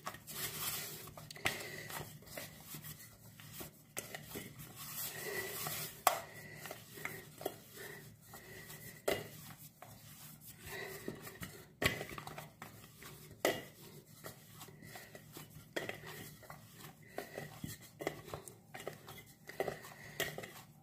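Wheat-flour dough being kneaded by hand in a stainless steel plate: irregular soft knocks and clinks of the metal plate as the dough is pressed and turned, with sharper knocks about six and twelve seconds in.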